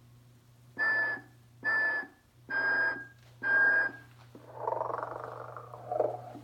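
Telco sleeping Santa motionette's sound effects through its small speaker: four short whistled notes about a second apart, then a long breathy snore. A low steady hum runs underneath.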